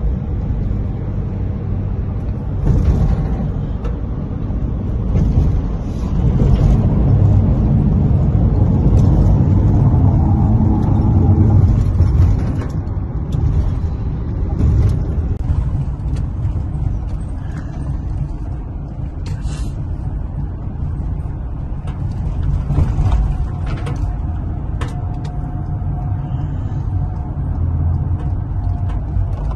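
Steady low rumble of a vehicle driving, engine and road noise swelling for a few seconds near the middle, with a few short knocks in the second half.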